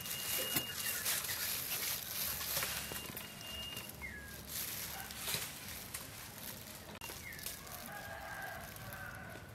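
A rooster crowing and chickens clucking, with thin whistled bird calls and a few light clicks of a spoon on the fish and bowl.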